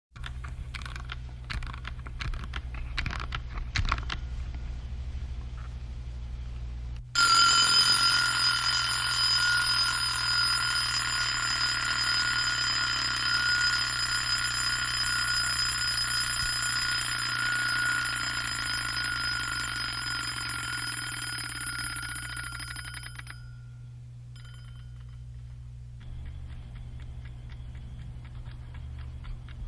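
Small vintage wind-up mechanical timer: about seven seconds of irregular clicking, then its bell goes off suddenly with a fast rattling hammer ring. The ring holds for about sixteen seconds, slowly fading before it stops, and is followed by a couple of faint pings.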